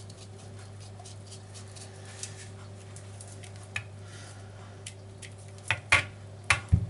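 A spatula scraping ground hazelnuts out of a plastic chopper bowl into a dish, with light scraping and then a few sharp knocks near the end, the loudest sounds, as the bowl and spatula are tapped to shake the nuts out.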